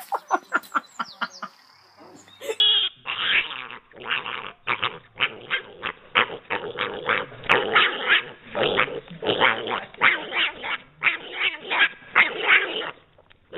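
Small pig squealing in a long string of short, loud cries. In the first two seconds, a quicker run of shorter, fainter pulses from another source.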